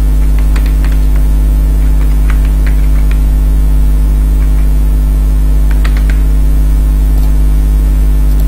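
Loud, steady electrical mains hum with a buzz of overtones. Over it are a few faint clicks in small clusters from computer keyboard typing and mouse clicks.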